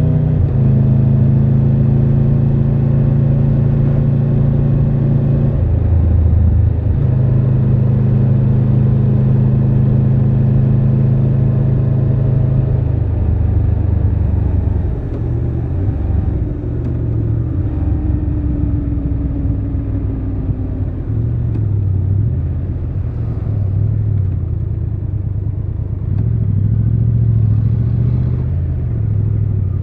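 Triumph Tiger 1200 Rally Pro's three-cylinder engine under way, holding steady revs with a brief dip about six seconds in, then going quieter and uneven from about thirteen seconds in, its revs rising and falling.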